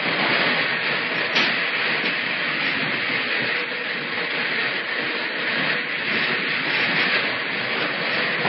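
Steady rushing noise with no clear rhythm or pitch.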